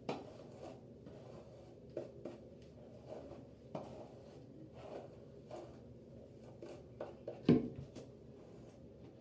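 Paddle hairbrush pulled through long hair in short, irregular strokes, with one louder thump about seven and a half seconds in.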